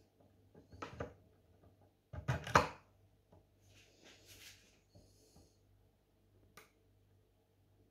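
Metal clicks and knocks of a lock-manipulation tool being worked inside a Mottura C28 European cylinder lock, with the loudest cluster of knocks a little over two seconds in and a single click near the end.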